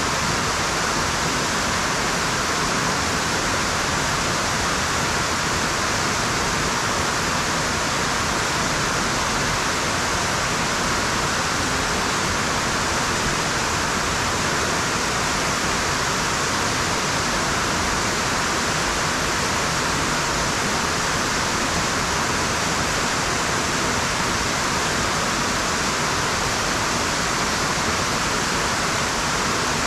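Waterfall and rushing creek water: a steady, unbroken rush of falling water.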